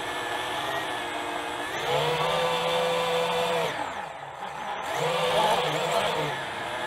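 FPV quadcopter's brushless motors and propellers whining as the throttle changes: the pitch and level step up about two seconds in, drop sharply around four seconds as the throttle is cut, then climb again a second later.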